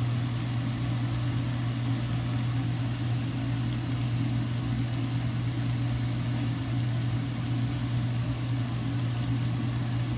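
A steady low machine hum that does not change, with a few faint ticks over it.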